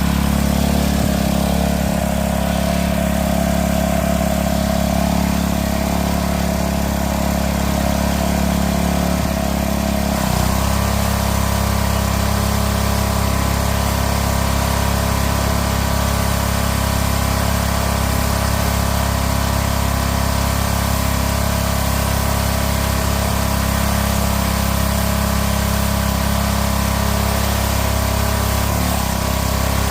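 Gas-engine pressure washer running steadily, its engine hum under the hiss of the spray. The engine note dips and shifts briefly about ten seconds in, and again near the end.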